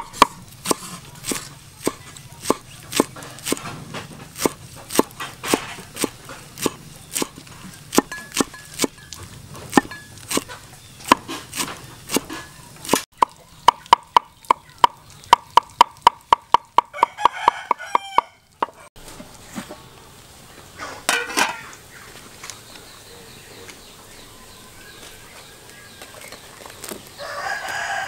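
Steel cleaver chopping herbs on a thick wooden chopping block, sharp knocks about twice a second, then faster at about four a second from about halfway before stopping. Chickens cluck and a rooster crows, the last crow near the end.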